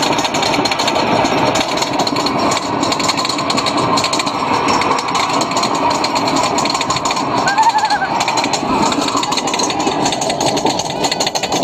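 Wooden roller coaster train rattling and clattering along its track at speed, with rushing wind noise on the microphone. A brief high-pitched squeal cuts through about two-thirds of the way in.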